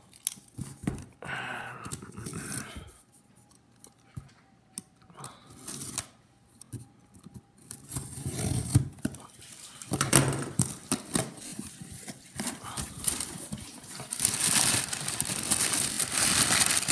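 A cardboard box being opened by hand, its flaps pulled apart with scattered small clicks, then crumpled kraft packing paper crinkling and rustling as it is pulled out, loudest in the last few seconds.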